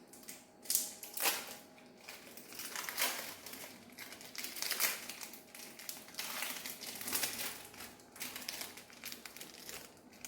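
Plastic wrapper of a cheese slice crinkling in irregular rustles as it is peeled open.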